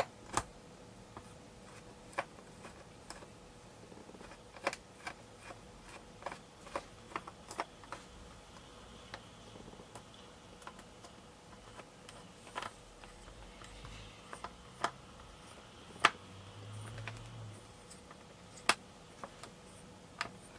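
Scattered small clicks and taps, irregular and a second or more apart, from a small Phillips screwdriver working the tiny bottom-case screws of a MacBook Pro and the screws being handled and set down.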